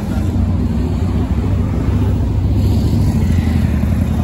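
Street traffic: motor vehicle engines running, a steady low hum, with a motorcycle passing close by.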